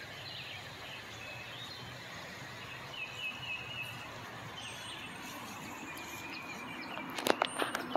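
Quiet outdoor ambience with faint bird chirps, a short run of high chirps about three seconds in. Near the end a few sharp clicks or knocks.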